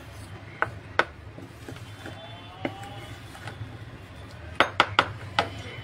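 Sharp clinks and knocks of kitchen dishes and utensils being handled: a few scattered ones, then a quick run of four near the end, over a steady low hum.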